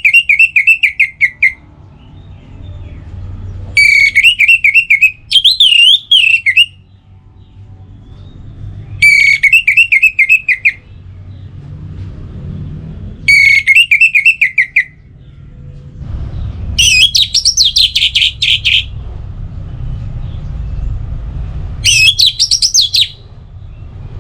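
Orange-headed thrush singing: about seven loud, quick warbled phrases, each one to two seconds long, with pauses of a few seconds between them. The last two phrases are pitched higher than the rest.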